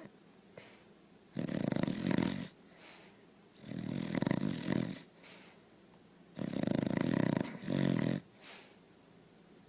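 Small Munsterlander dog snoring: three snores about every two and a half seconds, each a second or more long.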